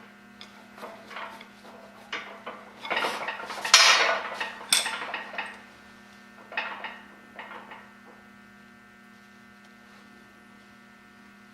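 Pieces of a snapped high-speed steel keyway broach and the hard steel gear blank clinking, scraping and rattling as they are handled. The clatter is busiest and loudest about three to five seconds in, then dies away, leaving a steady low hum.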